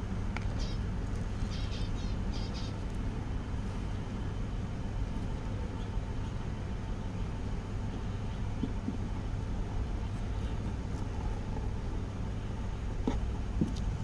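Light clicking of corn kernels being handled on a tabletop, mostly in the first few seconds, over a steady low rumble.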